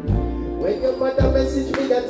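Live amplified music: a man singing into a microphone over music with deep, half-second bass notes.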